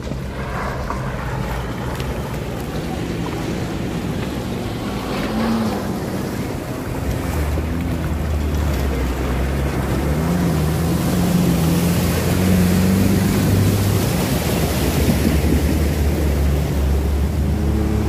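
Off-road jeeps driving through a shallow, rocky river: their engines run with a shifting, rising note while water splashes around the wheels over the steady rush of the current. The engines and the splashing grow louder through the second half as the jeeps come close.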